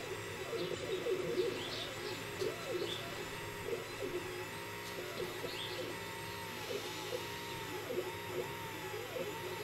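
SculpFun S9 laser engraver's stepper motors whining as the head traces a logo burned into wood: short tones that slide up and down in quick arcs, changing with each move, over a steady hum.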